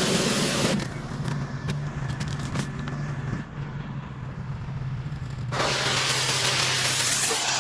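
Pressure washer: the engine-driven pump hums steadily while the high-pressure spray hisses. The spray cuts off about a second in, leaving the engine running with a few light clicks, and comes back on about four and a half seconds later.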